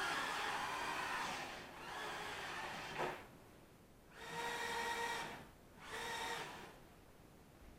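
Eachine E010 tiny whoop micro quadcopter's motors and propellers whining in four short throttle bursts with gaps between. There is a sharp knock about three seconds in.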